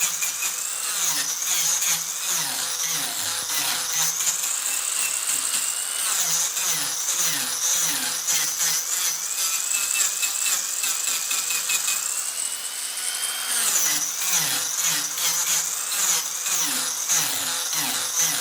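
Mini angle grinder cutting and shaping wood. It gives a high motor whine over a rough grinding rasp, and the whine climbs and then drops sharply twice as the tool bites into the wood.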